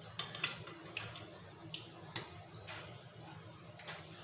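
Cassava patties frying in hot cooking oil in a pan: a steady sizzle with scattered crackles and pops, and one sharper click about two seconds in.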